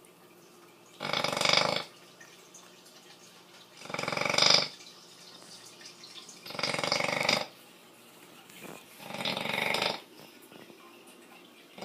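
American bully dog snoring in its sleep: four loud snores about two and a half seconds apart, each lasting under a second, with another beginning at the very end.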